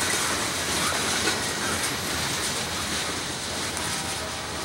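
Freight train's tank cars rolling along the rails, a steady rumble and clatter of steel wheels that slowly fades as the end of the train moves away.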